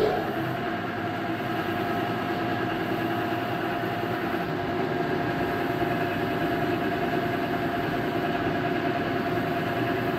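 Belt-driven lathe running steadily with a constant whine while its tool turns down a white plastic workpiece in the chuck.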